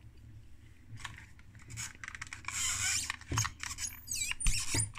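Handling noise from a small opened power supply in a plastic case: scattered clicks and light knocks, a scraping rustle about halfway through, and a short wavering squeak near the end as the case and chassis rub while being moved.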